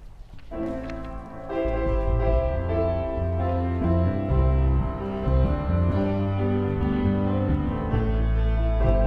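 Instrumental introduction on piano and bass. The piano starts about half a second in, and the bass joins with steady low notes about a second later.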